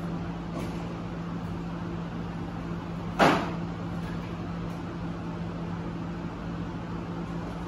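A single sharp knock about three seconds in, over a steady low hum.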